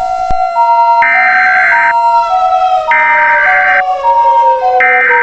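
Emergency Alert System alert audio: three roughly one-second bursts of SAME data header tones, laid over an electronic siren that alternates between two pitches while a second siren tone slowly winds down in pitch. These are the sounds that open an emergency alert.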